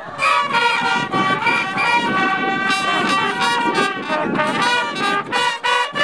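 Several brass trumpets (the rappa of Hamamatsu festival groups) blaring at once, overlapping notes changing in quick steps.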